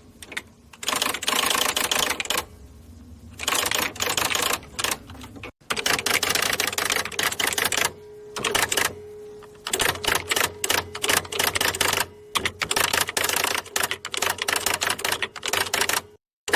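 Electric typewriter typing in fast runs of keystrokes broken by short pauses, with the machine's motor humming steadily underneath.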